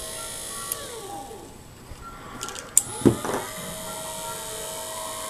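12-volt windshield wiper motor run through a PWM speed controller, its whine falling in pitch as it slows about a second in. A few clicks and a knock come near the middle, then the whine rises again and holds steady as the motor speeds back up.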